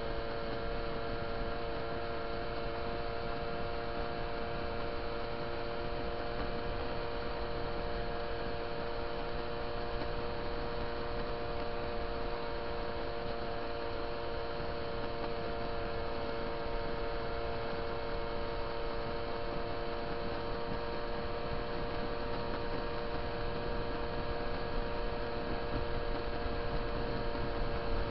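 A steady hum that holds one pitch, over a constant rushing noise, recorded while riding a moped along the road. It gets a little louder near the end.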